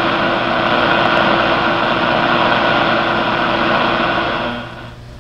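Loud, steady hiss of shortwave static with faint steady tones from a Hallicrafters S-40B receiver on a long-wire antenna, its noise limiter switched off. It cuts off sharply near the end.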